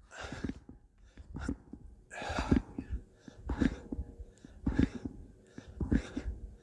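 A man breathing hard through push-ups, with a forceful exhale about once a second, one for each repetition.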